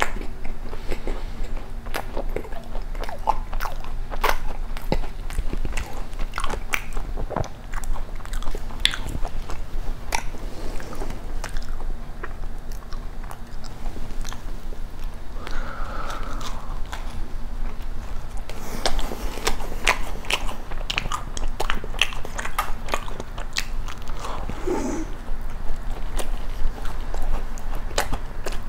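Close-miked chewing and biting of a dacquoise topped with an Oreo cookie: a steady run of small, irregular crunches and crackles from the crisp meringue and cookie, with wet mouth sounds.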